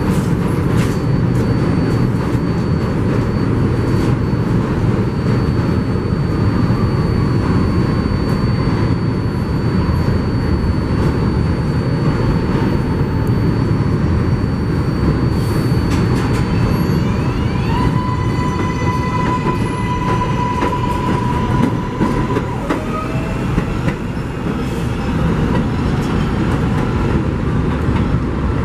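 New York City subway train running through the station with a steady, loud rumble of wheels on rail. From about 17 seconds in, a rising electric motor whine joins it.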